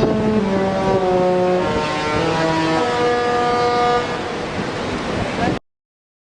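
A Disney Cruise Line ship's musical horn, sounded from the forward funnel, plays a tune: a run of held notes that step up and down in pitch over wind and sea noise. It cuts off abruptly about five and a half seconds in.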